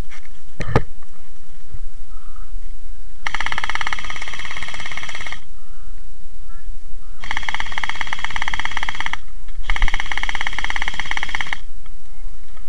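Electric gel blaster fired on full auto in three long bursts of about two seconds each, the last two close together, its motor-driven gearbox cycling as a fast, even buzz. A single knock sounds near the start.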